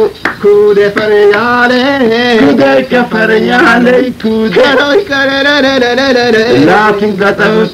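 A Harari song: a voice sings a winding, ornamented melody with long held notes over a steady, sustained accompaniment.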